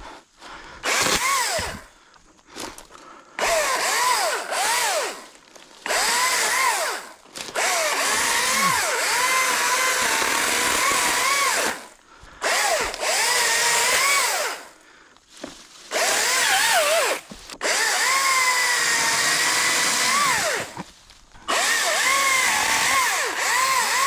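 ECHO DCS-2500T battery top-handle chainsaw run in about eight short bursts while cutting brush and small trees. The electric motor's whine dips in pitch each time the chain bogs in the wood and rises again as it frees.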